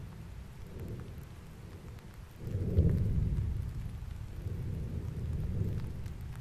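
Erupting volcano throwing out bursts of glowing lava, heard as a low, deep rumbling. About two and a half seconds in comes a sudden loud blast that rumbles on and fades, and the rumble swells again near the end.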